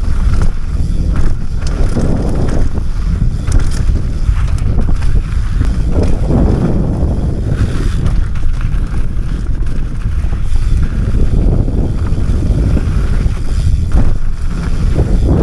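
Mountain bike riding fast down a rough trail: wind buffets the helmet-mounted camera's microphone in a loud, steady rumble, with scattered knocks and rattles from the bike over the ground.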